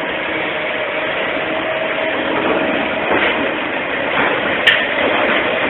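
A motor-driven machine running steadily, with a faint steady hum in it that fades out about halfway through.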